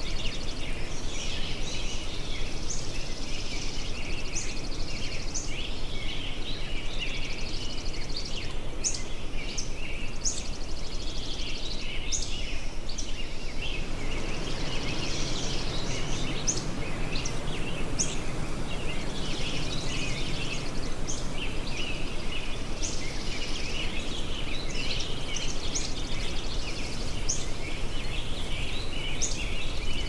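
Birds chirping and singing, with many short overlapping calls, over a steady low background rush that grows louder about halfway through.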